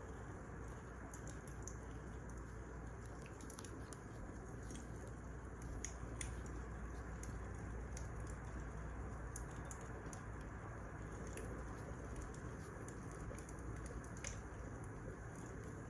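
Wood fire crackling: scattered, irregular sharp pops over a steady low hiss.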